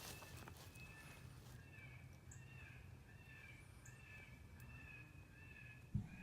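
Electronic predator call playing a cottontail rabbit distress sound: a faint, wavering squeal repeated about twice a second, used to lure coyotes. A short low thump near the end.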